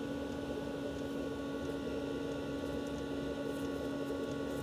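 Planar (Autoterm) 2D diesel air heater running lit on its first test fire: a steady whir of its blower fan and burner with a constant hum, likened to a jet engine taking off.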